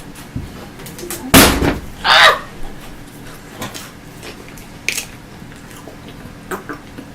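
Close-miked eating sounds: a heavy thump about a second and a half in, then a short crunchy rustle just after, with scattered small clicks and mouth smacks.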